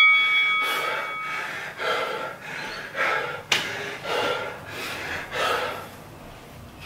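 A man breathing hard and gasping, heavy breaths roughly one a second, out of breath from a high-intensity interval. A bell-like chime rings out and fades in the first second and a half, and a sharp click sounds about three and a half seconds in.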